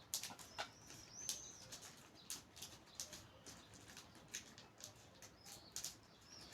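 Faint handling noise: scattered light clicks and rustles of a new phone and its packaging being handled, with a few brief high chirps.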